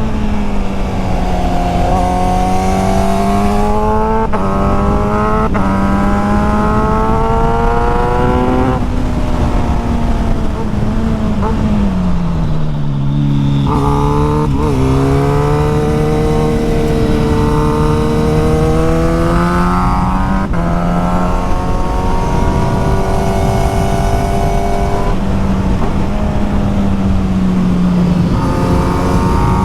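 Sport motorcycle engine accelerating through the gears, its pitch rising and dropping back at each upshift, over wind noise. About twelve seconds in it eases off, then pulls through the gears again.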